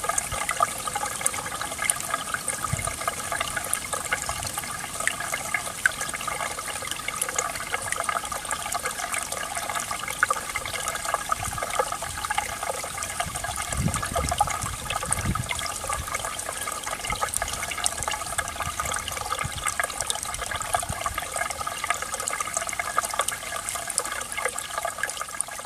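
Spring meltwater stream running steadily, a dense babble of many small splashes and trickles. There are a couple of low thuds about halfway through.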